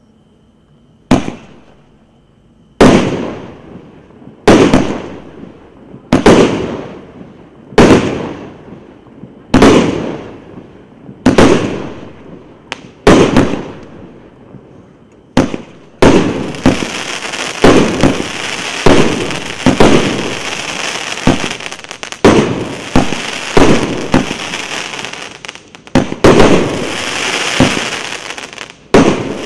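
Consumer fireworks cake, 1.2-inch bore, 49 shots, firing. Single loud bangs come about every second and a half, each fading away. From about 16 s the shots come faster, more than one a second, over a continuous hiss.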